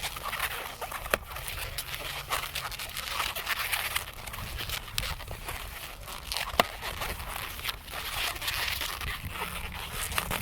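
Latex modelling balloons being twisted and handled, squeaking and rubbing against each other, with two sharp clicks, one about a second in and one past the middle.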